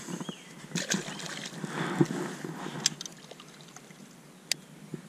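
Water trickling and splashing at a kayak, with a few sharp clicks and knocks spread through it.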